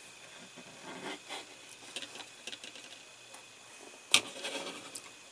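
Small clicks and rustles of model parts and a fabric seatbelt strap being handled on a work surface, with one sharp click about four seconds in.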